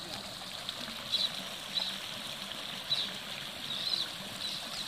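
Water spilling over a concrete weir into a canal, a steady rush, with short high chirps about once a second.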